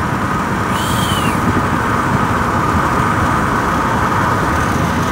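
Steady road traffic and engine noise, with a low rumble throughout. A brief high squeak comes about a second in.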